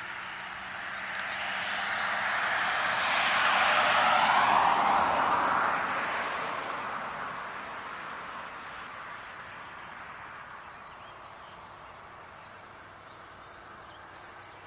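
A vehicle passing by: its noise swells over a few seconds, drops in pitch as it goes past about four seconds in, then fades away. Insects keep up a steady high trill, with a few chirps near the end.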